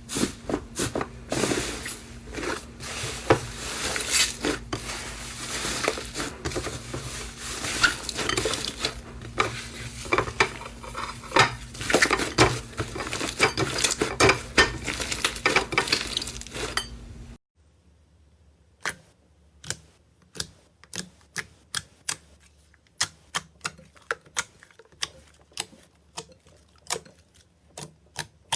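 Slime being squished and worked by hand: a dense run of crackling, popping clicks. Then, after a sudden cut about two-thirds of the way in, a quieter run of separate sticky pops, about two a second.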